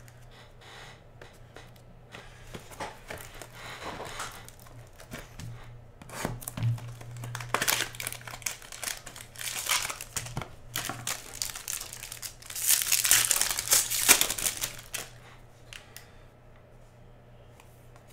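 Foil wrapper of a Topps Star Wars Masterwork trading-card pack torn open and crinkled by hand. The crinkling comes in irregular bursts and is loudest about two-thirds of the way through.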